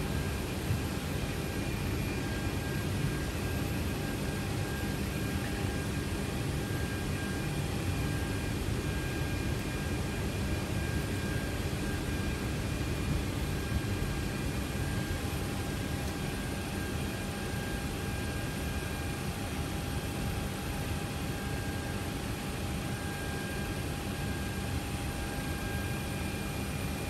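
Cockpit noise of a C-17 Globemaster on the ground, its four Pratt & Whitney F117 turbofans running at low power: a steady rush with a few faint, steady whining tones over it.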